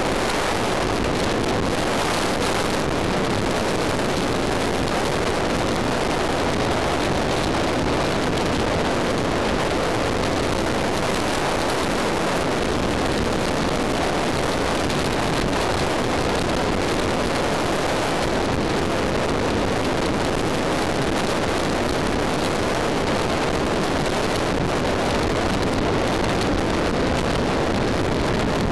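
Steady rush of wind and road noise over the microphone of a camera mounted on a motorcycle at motorway speed.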